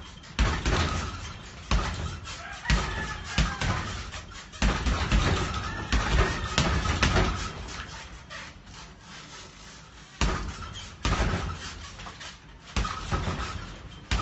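Punches landing on a hanging heavy bag: heavy thuds in quick, irregular bunches with short pauses, and fewer blows for a couple of seconds near the middle.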